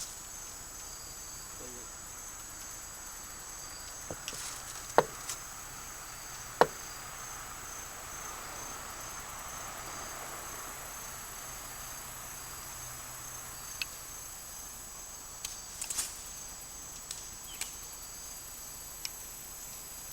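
Insects trilling steadily in a high, evenly pulsing chorus, with a few sharp clicks and knocks scattered through it, the loudest about five and six and a half seconds in.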